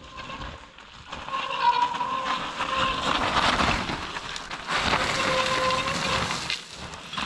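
Mountain bikes squealing while riding over loose, rough ground: drawn-out squeals come twice over a loud rushing, rattling noise of tyres and bikes on the trail.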